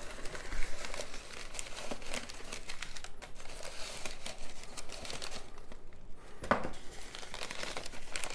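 Crumpled paper packing crinkling and rustling as it is pulled from a cardboard shipping box and unwrapped by hand. The sound is uneven, with short crackles, and it goes briefly quieter about six seconds in.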